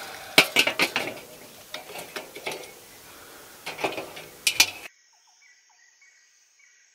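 Metal clinks and clanks of a charcoal kettle barbecue's grill grate and skewers being handled as halloumi and pepper skewers are turned, irregular knocks for about five seconds. It then cuts off abruptly to quiet outdoor air with a few faint bird chirps.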